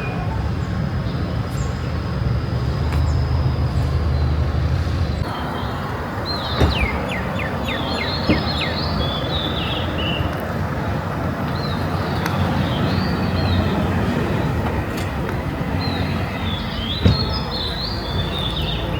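Small birds chirping in short, quick figures, repeated in clusters through most of the stretch, over a steady low rumble. A few sharp clicks stand out.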